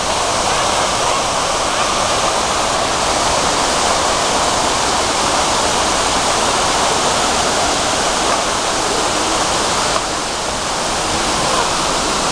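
Large public fountain running: a tall cone of water jets crashes onto a wide bowl and pours over its rim in many streams into the basin. The result is a steady, loud splashing rush.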